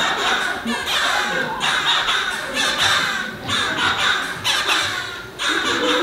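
Harsh squawking and cawing calls for a row of puppet birds, one call after another about once a second.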